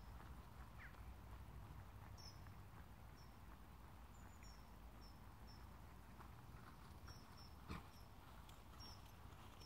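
Near silence: a low wind rumble with short high chirps now and then and faint hoofbeats of a horse ridden on a sand arena, with one sharp click near the end.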